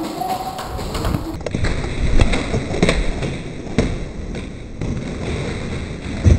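Airsoft gunfire: scattered sharp cracks and thuds of shots and BB hits at irregular intervals, the loudest about two seconds in and near the end, over the background noise of the arena.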